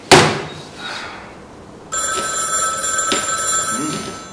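A sharp thump at the very start, then a mobile phone ringtone about two seconds in: a steady electronic ring of several high tones held for about two seconds.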